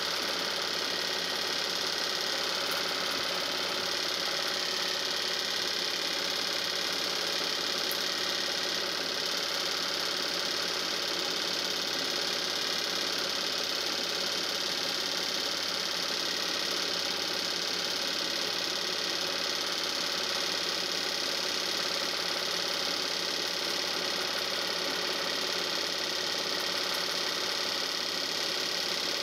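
Film projector running steadily, its motor and shutter mechanism making an even whirring clatter.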